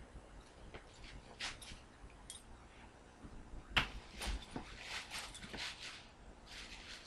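Two tabby kittens play-fighting, with scattered short rustles and scuffles as they tumble on carpet and a crinkling plastic bag, busiest in the second half, and one sharper knock a little before four seconds in.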